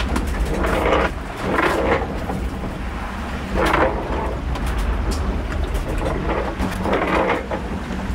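Sea noise heard from inside a sailboat's cabin: a steady low rumble with water rushing along the hull in four surges as the boat rolls through the waves, and a few light clicks and rattles.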